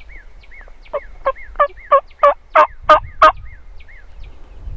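A wingbone turkey call blown close by: a series of about eight hen yelps about a third of a second apart, each breaking from a higher to a lower note and growing louder through the run. A small bird chirps faintly and repeatedly behind it.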